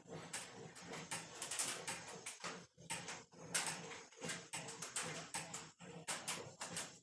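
Sheet-steel patch panel being rolled back and forth through a benchtop English wheel, a quick, uneven run of short strokes as the panel is pushed and pulled between the wheels to stretch a curve into it.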